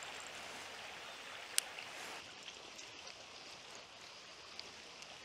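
Small rocky stream running, a faint steady rush of water, with one sharp click about a second and a half in.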